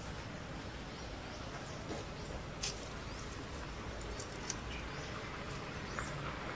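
Outdoor forest ambience: a steady low rumble with faint, short high chirps scattered throughout, and a few sharp clicks around the middle.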